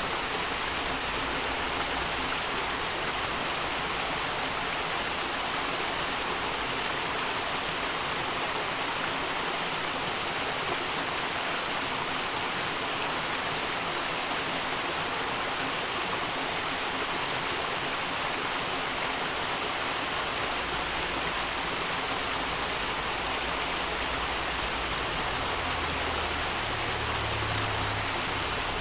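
A small wild mountain stream rushing and splashing in an even, unbroken hiss of water.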